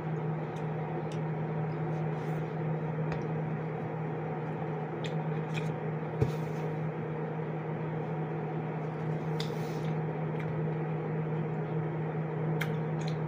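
Steady humming of a running household appliance, with a few faint clicks and one sharper tap about six seconds in.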